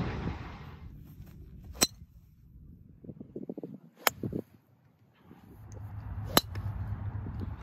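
Golf club striking a ball three times, a little over two seconds apart, each a single sharp crack. Wind noise on the microphone fades out at the start.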